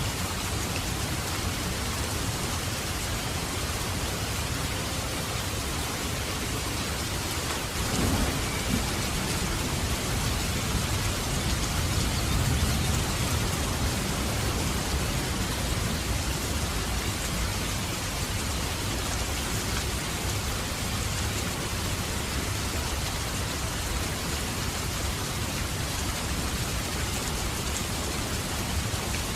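Heavy rain falling steadily, a dense patter of raindrops on surfaces. About eight seconds in, a low rumble of thunder breaks in suddenly, swells for several seconds and fades back under the rain.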